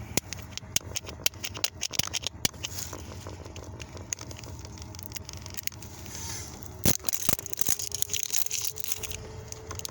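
Plastic shrink-wrap crackling as fingers and fingernails pick and peel it off a textured plastic toy egg, in many quick sharp clicks and crinkles.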